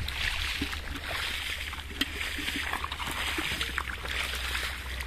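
Many fish splashing and thrashing at the surface of shallow, muddy pond water: a continuous patter of small splashes with an occasional sharper slap, one about two seconds in.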